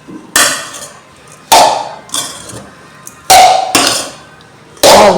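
A metal spoon clanking against a metal cooking pot while noodles are stirred and mixed: about six separate ringing knocks a second or so apart.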